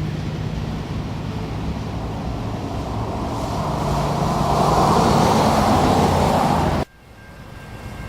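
Freight train passing: a steady low diesel drone under wheel-and-rail noise that builds to a peak about five seconds in, then cuts off suddenly near the end.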